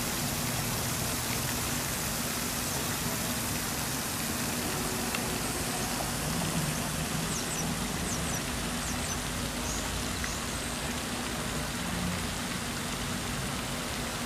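Steady, even outdoor background noise like a hiss, with a faint low hum underneath.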